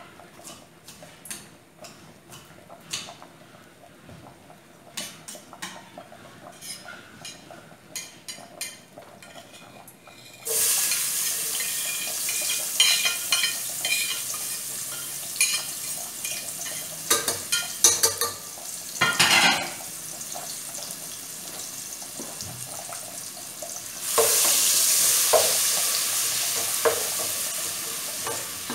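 Knife tapping on a glass cutting board as seasoning is chopped. About ten seconds in, a sudden loud sizzle as the chopped seasoning goes into hot homemade pork fat in a steel pot, with knocks of the board and spoon against the pot. The sizzle eases off and surges again near the end as more goes in and is stirred.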